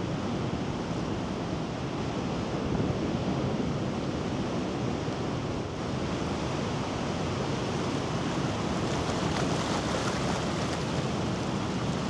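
Rough storm surf breaking offshore and washing in over rocks and sand in a steady rush of foaming water, with wind buffeting the microphone.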